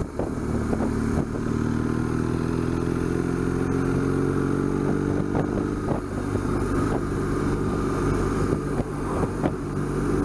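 BMW R1200GS boxer-twin motorcycle engine running under way, its pitch rising slowly and steadily as the bike gathers speed, with a few light knocks.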